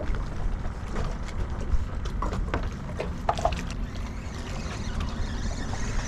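A steady low rumble of wind on the microphone and water moving around a small fishing skiff, with scattered light knocks and clicks from gear in the boat.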